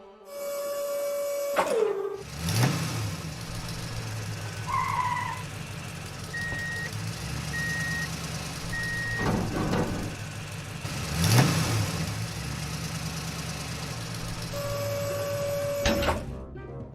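Cartoon sound effect of a vehicle engine running steadily, with three short beeps about a second apart midway and a few brief swishes.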